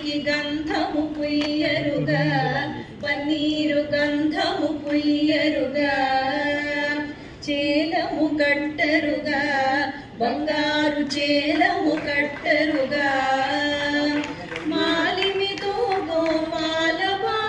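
A woman singing a song in long phrases, with held notes and sliding ornaments between pitches. She breaks briefly between phrases about three, seven and ten seconds in.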